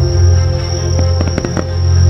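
Slow show music of sustained notes over a heavy low bass, with a quick cluster of about five sharp firework cracks about a second in. A steady high insect trill runs underneath.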